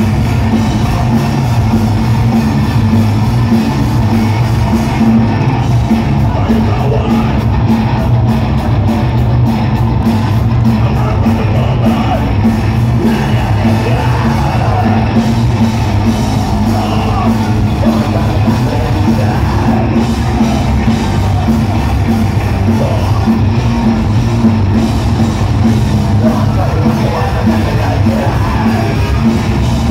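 Hardcore punk band playing live and loud: distorted guitars, bass and drums under shouted vocals, in one continuous dense wall of sound in a large hall.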